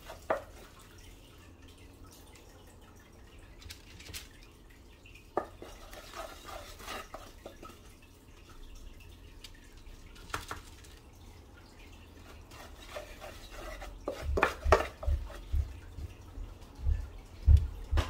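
Wooden spoon scraping and knocking against a stainless steel pan as thick, cooked-down milk-and-sugar paste is scooped out and dropped onto a board. Scattered clicks at first, then a busier run of knocks with low thuds near the end.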